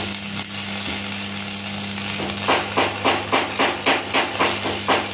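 Electric arc welding a steel foot onto a compressor's shell: a continuous crackling sizzle from the arc over a steady low hum. About halfway through, a run of sharp regular pulses starts, about three a second.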